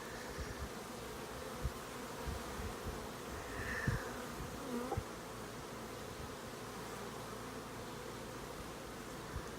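Honeybees buzzing around an opened hive in a steady hum, with a few soft thumps.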